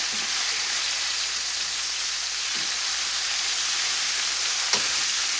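Breaded venison steaks frying in hot oil in a skillet: a steady, even sizzle, with one light click near the end.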